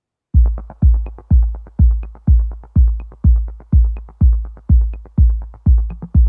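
Electronic dance music with a steady kick drum, about two beats a second, and quick ticking hi-hats between the beats. It starts abruptly a moment in, after silence.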